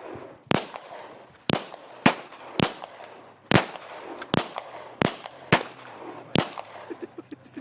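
Semi-automatic gunfire: a string of about ten shots fired in quick, uneven succession, roughly one every half second to second.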